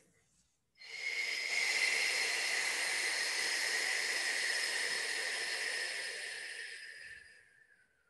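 A woman's long, slow exhale, starting about a second in and lasting some six seconds before fading out near the end. It is a paced exhale of a yoga breathing exercise, drawn out as the knees sink toward the chest.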